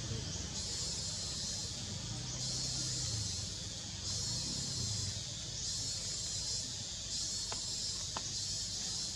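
Insects calling in the surrounding trees: a high, shrill buzz that comes in repeated phrases of about a second and a half with short breaks, over a low background rumble. Two faint clicks near the end.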